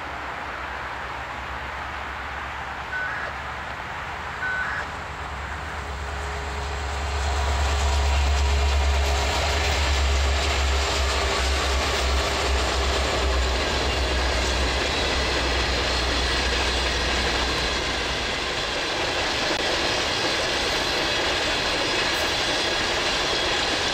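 Canadian Pacific empty unit coal train passing: a low diesel rumble swells and peaks about a third of the way in, then the empty coal hopper cars roll by with steady wheel-on-rail noise and some clickety-clack.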